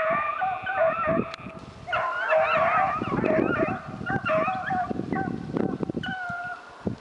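Rabbit hounds baying and yelping on a rabbit's trail, several voices overlapping, thickest about two to four seconds in.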